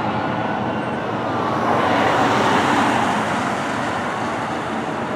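Road traffic noise with a vehicle going past about two seconds in, while a fire engine's siren wails faintly in the first second or two and fades into the distance.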